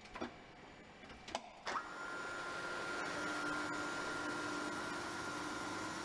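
A few light clicks; then, under two seconds in, a Deckel FP 42 NC universal tool milling machine's drive cuts in with a knock. It runs on steadily with an even whine over a low hum.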